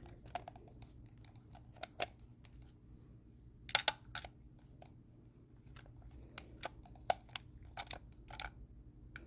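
Light, scattered clicks and scrapes of a small screw being tightened in the exterior lever of a Veise RZ09 smart lock, with a louder cluster of clicks about four seconds in. The screw is being tightened to cure a loose lever that was not engaging.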